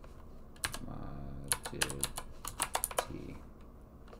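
Typing on a computer keyboard: short runs of quick keystrokes with pauses between them, thinning out near the end.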